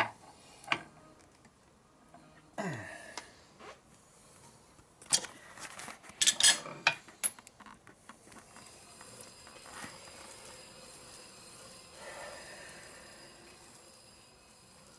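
Steel tools and crankshaft parts clinking and clanking as they are handled at a truing stand. There are a few knocks, then a scrape that falls in pitch, then a cluster of sharp metallic clinks about five to seven seconds in. After that only a faint steady background noise remains.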